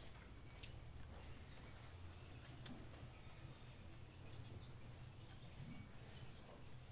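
Faint cowshed room tone: a steady low hum under a high hiss, with one sharp click about two and a half seconds in.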